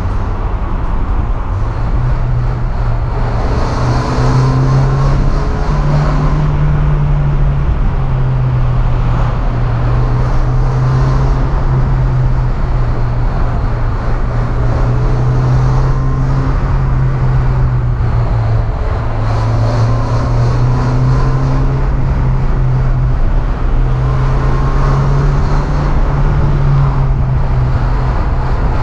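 Mazda MX-5 NA's 1.6-litre four-cylinder engine running under way, its pitch stepping up and down a few times, with road and wind noise picked up by the camera's built-in microphone in the open cabin.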